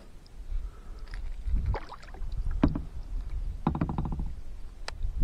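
Kayak being paddled and turned: knocks against the plastic hull over a low rumble, with a short buzzing tone about four seconds in.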